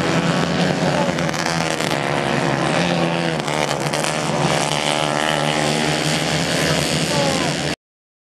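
Several 150 GP class racing kart engines running at high revs as a pack of karts passes, their pitches rising and falling over one another. The sound cuts off abruptly near the end.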